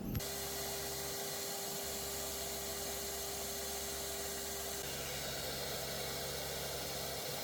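CNC machine spindle starting suddenly and running steadily as it machines a test cross 1 mm into the material surface: an even hiss with a low hum beneath. A steady tone in the hum stops about two-thirds of the way through.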